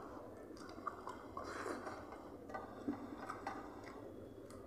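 Eating by hand: chewing, with fingers mixing rice on a steel plate, heard as a string of short, wet clicks.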